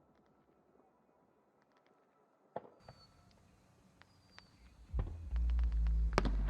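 Fireworks at a distance: near silence, then a sharp bang about two and a half seconds in followed by scattered pops and crackles. About five seconds in, a loud low rumble sets in and holds.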